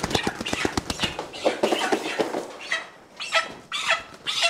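Young meat chickens flapping their wings and squawking as they are caught and handled by hand: a flurry of flapping in the first second, then several short, high squawks.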